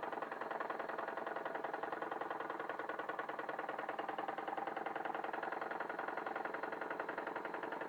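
Wilesco D21 toy steam engine running steadily with a rapid, even beat, driving a 3D-printed Baker fan as its load; it sounds good under the load.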